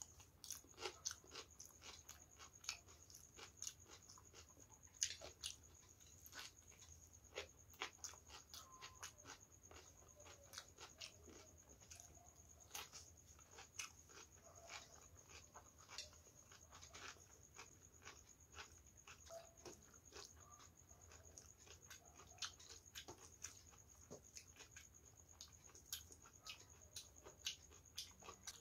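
Close-miked chewing of a stuffed green capsicum: wet crunches and mouth clicks at short, irregular intervals. A faint steady high-pitched whine sits under them.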